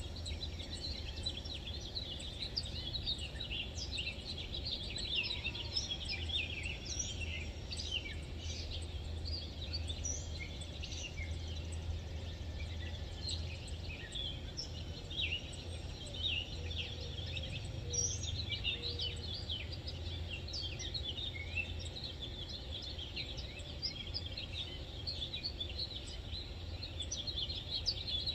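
Many birds chirping and twittering without a break, over a steady low rumble.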